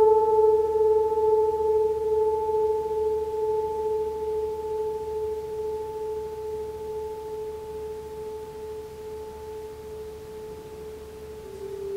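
A large gong's hum dying away slowly as a few clear, steady tones. Shortly before the end a new, slightly lower tone begins to swell as the gong is played again.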